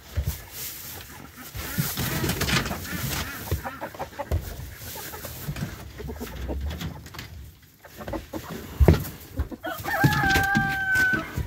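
Chickens clucking amid rustling and knocking in the coop, with a loud knock about nine seconds in. Near the end a rooster crows once, a drawn-out call held steady for about a second.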